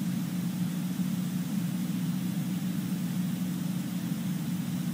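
Steady low hum over a faint hiss, unchanging throughout: the auditorium's background room tone.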